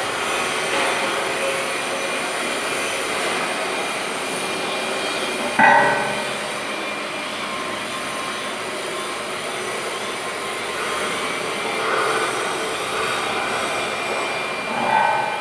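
Electric welding arc running as a steady, noisy hiss, with a brief louder burst about five and a half seconds in.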